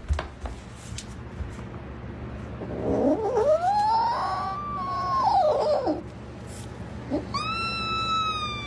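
A cat yowling: two long drawn-out calls, the first rising and then falling in pitch, the second starting high and sliding slowly down.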